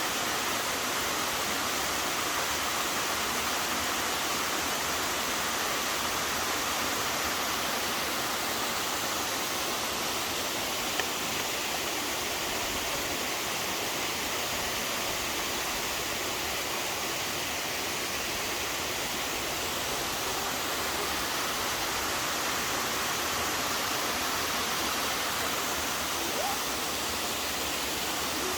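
A waterfall's water rushing steadily, an even hiss with no change in level.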